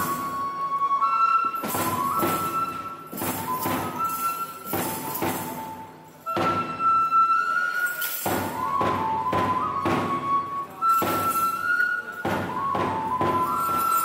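Bugaku dance music: a Japanese transverse flute holding long, stepping notes over drum strikes that come every second or two.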